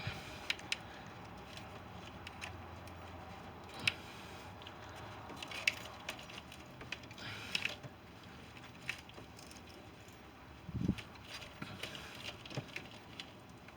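Scattered light clicks and clinks of a fuel-line disconnect tool and hand tools being worked on fuel-rail fittings, with a duller knock about eleven seconds in.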